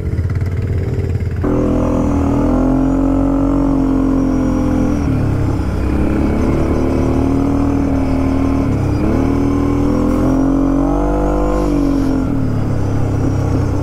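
ATV engine running under throttle on a dirt trail. Its pitch picks up sharply about a second and a half in, holds steady, and sags and climbs again twice as the rider eases off and speeds back up.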